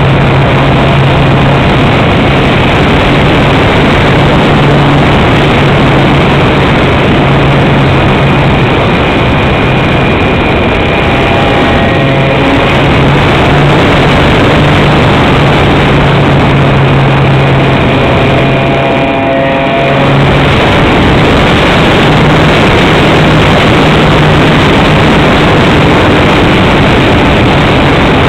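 Radio-controlled powered glider's motor and propeller running with a steady low hum, under heavy rushing wind noise on the onboard microphone. The hum drops out briefly about two-thirds of the way through, then returns.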